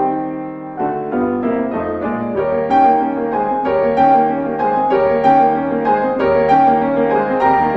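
Background solo piano music, a continuous flow of notes.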